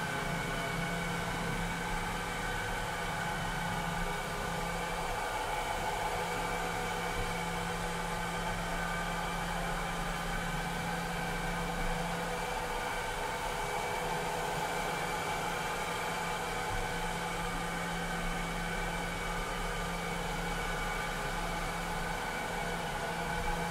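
Vileda robotic vacuum cleaner running: a steady motor whir with several whining tones over a hiss. A low hum under it fades a little twice and comes back.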